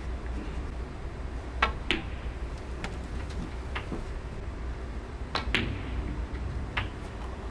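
Snooker balls clicking as shots are played: a sharp pair of knocks, cue tip on cue ball and cue ball on object ball, about a second and a half in, and another pair about five and a half seconds in. Fainter single knocks fall in between, over a low steady hall hum.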